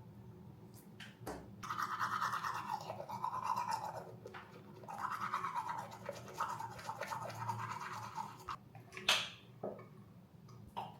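Rhythmic brushing or scrubbing in spells of a second or two, from about two seconds in until near nine seconds, then a short swish and a click near the end.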